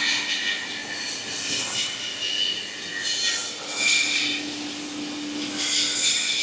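Factory workshop noise: a steady machine hum with repeated short bursts of hissing.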